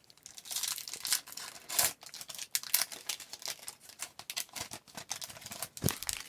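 2014-15 Upper Deck MVP hockey card pack being handled: the foil wrapper crinkles and tears, and the cards rustle and click, in quick, uneven bursts, with a short knock near the end.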